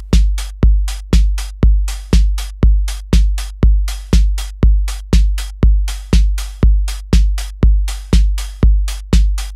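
Electronic drum loop playing from a Native Instruments Maschine+: a deep kick drum on every beat, about two a second (around 124 BPM), with a long low tail on each hit and sharp hi-hat hits between the kicks.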